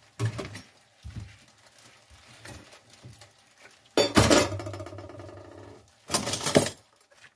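Kitchen handling sounds as a mackerel is moved on a wooden cutting board: a few soft knocks in the first second, then a loud clatter about four seconds in whose ringing fades over about two seconds, and a second short noisy burst a little after six seconds.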